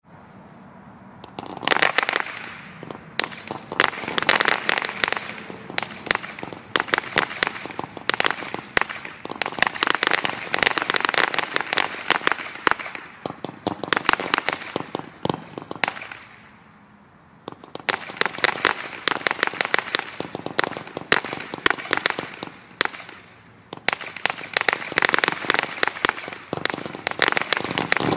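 A 225-shot consumer fireworks cake firing in rapid succession: dense runs of sharp pops from the small shots, starting about a second and a half in. The shots come in waves with brief dips, the longest lull a little past halfway.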